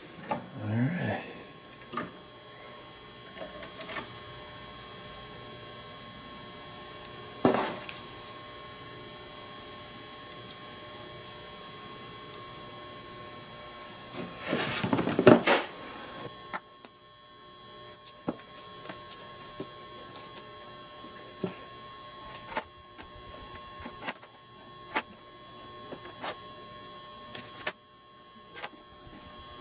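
Steady electrical hum with scattered light taps and clicks from handling a glue-coated bow, a brush and sinew strands on a cardboard-covered table. A louder scraping rustle lasts about two seconds near the middle.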